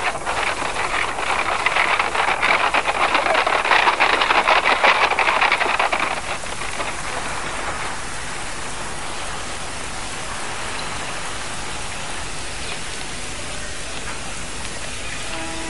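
Newspaper pages rustling and crackling as they are taken and unfolded, for about six seconds, then a steady hiss. Music comes in near the end.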